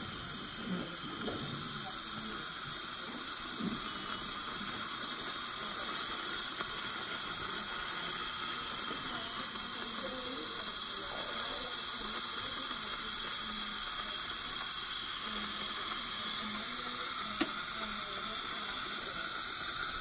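A steady hiss, stepping up louder about sixteen and a half seconds in.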